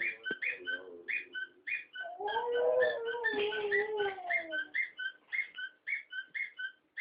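Dog giving a long, slowly falling howl-like whine from about two seconds in. Under it runs a steady series of short high chirps, about three a second.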